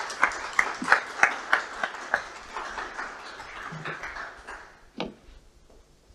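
Applause with separate hand claps clearly heard, dying away about four and a half seconds in, followed by a single sharp knock about five seconds in.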